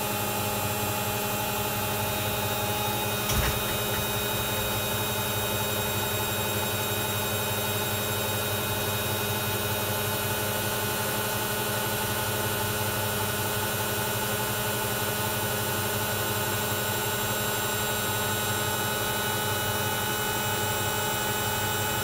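Hoover Ecologic 1300 front-loading washing machine running: a steady motor hum and whine with a noisy rush behind it, and one brief click about three seconds in.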